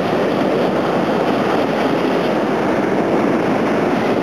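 Steady rush of surf breaking and washing up the sand at the water's edge.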